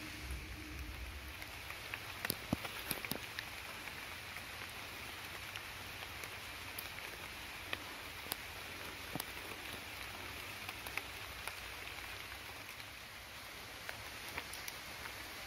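Steady rain falling on forest foliage, a continuous hiss with scattered sharp ticks of drops, most of them about two to three seconds in.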